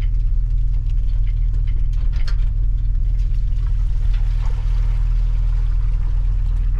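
Car engine running steadily at low speed, a low hum, as the vehicle reverses a boat trailer down a launch ramp, heard from inside the open rear cargo area.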